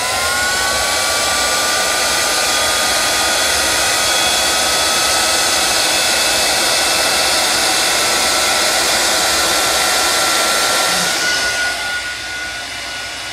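Electric heat gun running: its motor spins up with a rising whine at the start, then runs steadily with a strong rush of hot air, shrinking heat-shrink tubing on an ignition wire. Near the end the rush of air fades while the motor whine carries on.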